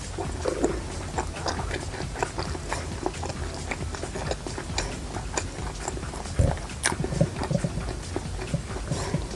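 Close-miked chewing and wet lip-smacking of a person eating, with irregular short clicks and smacks, busiest about six and a half seconds in.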